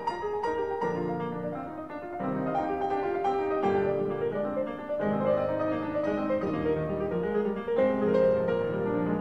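Instrumental background music led by piano, with notes changing every half second or so.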